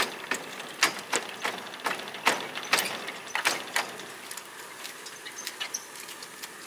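A string of sharp, irregular clicks and snaps from a greenhouse door and its frame being worked by hand, closest together in the first few seconds.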